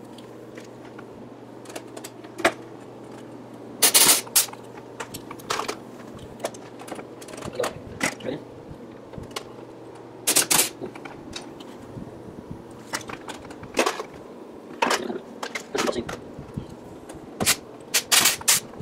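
Air-driven pop rivet gun setting rivets, fired about half a dozen times: each pull is a short, sharp burst, the loudest about 4 and 10 seconds in. Lighter clicks and taps of handling come between, as rubber baffle seals are riveted to aluminum engine cylinder baffles.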